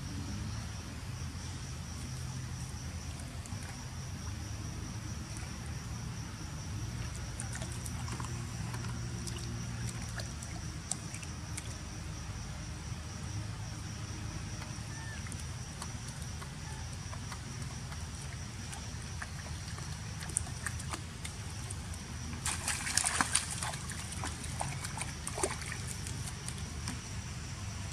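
A young macaque splashing through shallow muddy water, a quick flurry of splashes a few seconds before the end. Under it a steady high insect drone carries on throughout.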